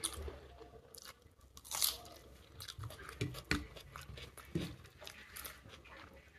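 Close-up mouth sounds of a person eating rice and hilsa fish curry by hand: chewing with several sharp crunches.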